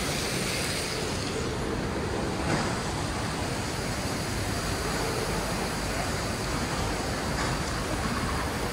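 Steady outdoor city ambience: an even wash of background noise with no distinct events.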